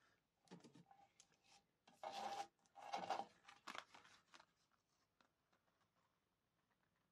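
A sheet of patterned craft paper rustling and crinkling as it is handled and lifted off a die-cutting plate: a few short scratchy rustles, the loudest about two and three seconds in, fading out after about four and a half seconds.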